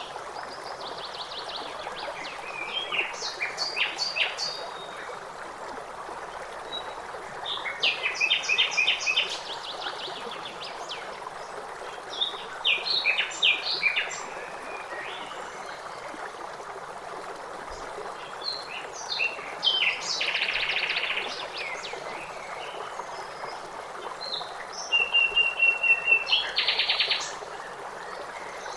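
A blackbird singing in short phrases every few seconds, some ending in fast trills, over the steady rush of flowing water.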